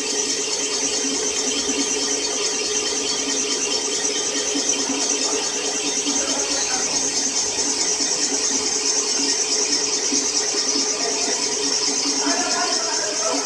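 Cylinder boring machine running steadily, its boring bar turning in one bore of an engine block as it bores out the cylinder: an even mechanical whir with a steady hum and a high hiss.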